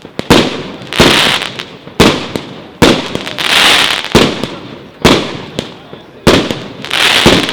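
Consumer fireworks cake (battery) firing: a string of sharp bangs roughly once a second, each trailing off in a decaying hiss as the shot breaks, with a longer, denser stretch in the middle and near the end.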